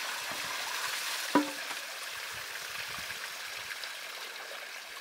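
Food sizzling steadily in a pan over the fire, with a single ringing metal clink of a utensil against the pot about a second and a half in.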